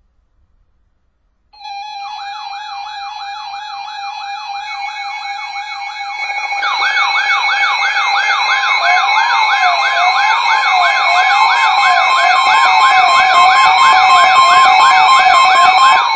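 Several electronic sirens sounding together: a fast warble rising and falling about twice a second over steady tones. More siren layers join about six seconds in, including a slower rise-and-fall, and the whole grows louder.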